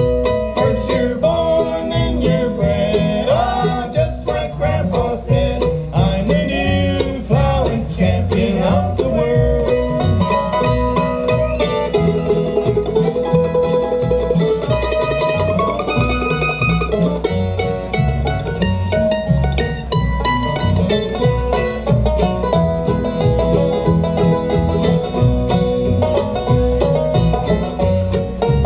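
Bluegrass band playing an instrumental break between verses, plucked strings with a steady beat.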